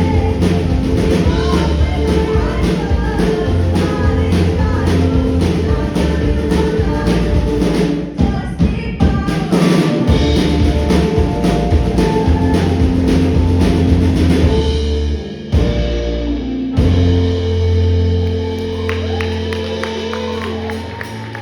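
Live rock band playing, with a singer and a drum kit keeping a steady beat. About fifteen seconds in the drums stop, and the band holds a long chord.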